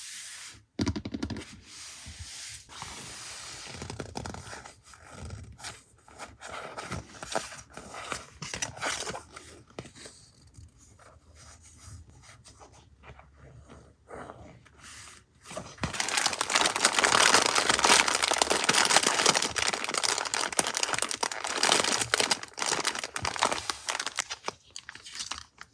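Paper and plastic packaging being handled and torn open: scattered taps and rustles, then, about sixteen seconds in, a long, louder stretch of crinkling and tearing.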